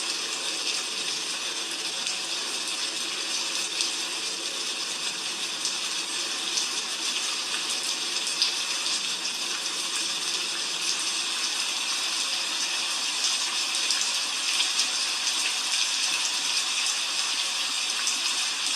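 Heavy rain falling steadily, an even hiss of water with many small drop patters scattered through it.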